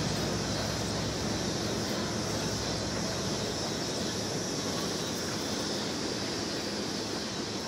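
Union Pacific freight train of tank cars rolling past, a steady noise of steel wheels on the rails that fades slightly near the end.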